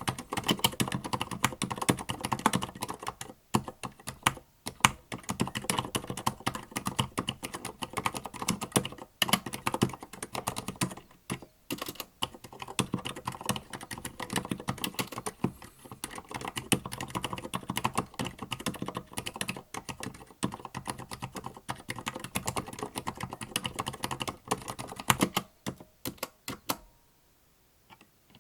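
Continuous fast typing on a Tada68 mechanical keyboard with Gateron Silent Black switches: a dense run of muted keystrokes that stops suddenly near the end.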